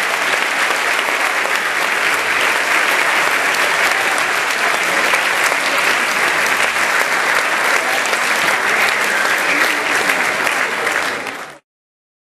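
Large audience applauding steadily, with dense overlapping claps; the sound cuts off suddenly near the end.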